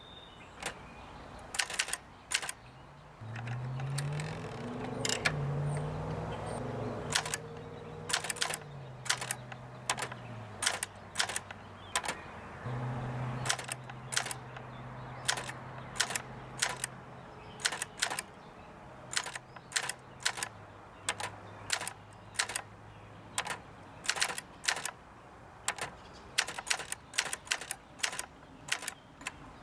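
1958 Adler Universal manual typewriter, out of its outer case, being typed on: sharp, irregular keystroke clacks of the typebars striking the platen, about one or two a second.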